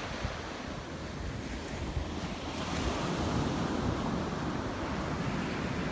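Sea waves washing onto a beach, with wind buffeting the microphone.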